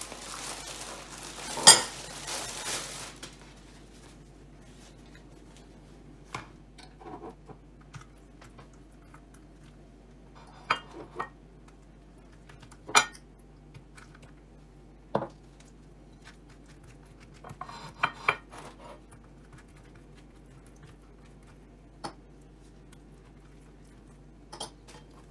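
A metal spoon clinking against a glass jar and a ceramic plate while scooping and spreading horseradish sauce, heard as about ten separate short clinks and taps, some in close pairs. It opens with a few seconds of rustling handling noise and one sharp knock.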